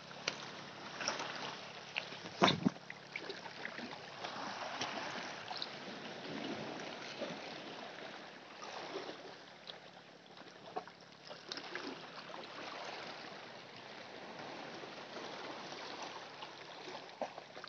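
Shallow sea water lapping and splashing irregularly, with small scattered clicks and a single sharp knock about two and a half seconds in.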